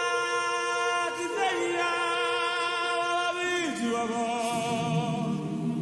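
Voices singing a cappella on long held notes with vibrato, stepping down to lower notes about three and a half seconds in.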